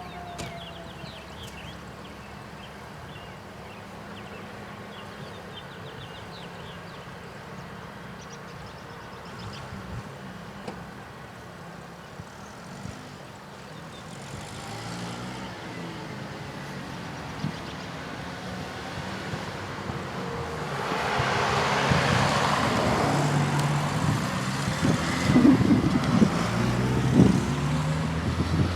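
The ACA Allertor 125 siren's falling tone dies away in the first second. After that there is wind noise on the microphone with some low rumbling, and the wind grows much louder about two-thirds of the way through.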